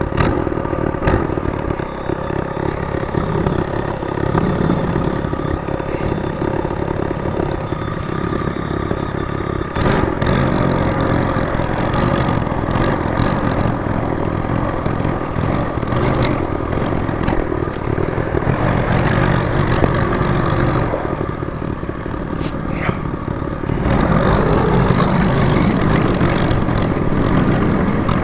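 Trailmaster MB200 minibike's small single-cylinder four-stroke engine running under way, the throttle opening and easing off, with a few sharp knocks along the way. It gets louder about three-quarters of the way through.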